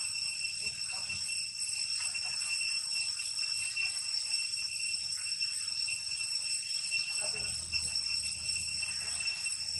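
Steady, high-pitched insect drone from outdoor insects, holding several constant tones without a break.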